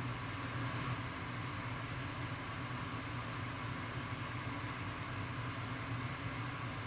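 Workshop machinery running steadily: a low, even hum with a hiss over it that does not change.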